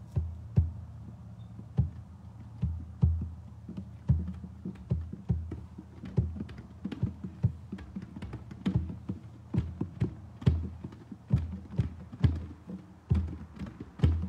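Hand drums in a drum circle being struck freely by several players: scattered single hits at first, growing more frequent and overlapping about halfway through, with no steady beat.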